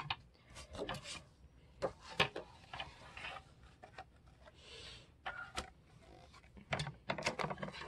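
Paper pages rustling and sliding as a book signature is opened and laid flat on a paper trimmer, with scattered light knocks and taps.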